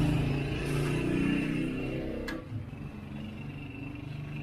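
A motor vehicle's engine rumble fading away over the first two seconds or so, with a single sharp click about two seconds in, leaving a faint steady hum.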